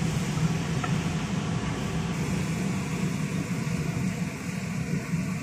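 A steady, low mechanical hum and rumble, with a faint click about a second in.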